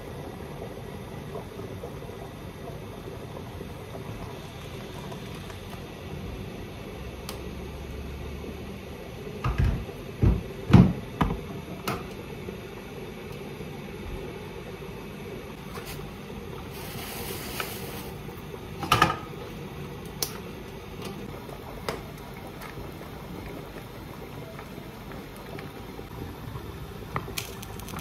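Kitchen food-preparation sounds over a steady background hiss: a cluster of sharp knocks about ten seconds in, a short rustle of a plastic bread bag a little later, another knock soon after, and small clicks of containers and utensils on the counter.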